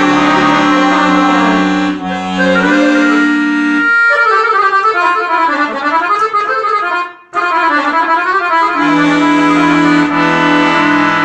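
Guerrini chromatic button accordion playing a folk tune, with the melody over held bass and chords. About four seconds in the bass and chords drop out, leaving a fast treble run with a brief break. The bass and chords come back near the end.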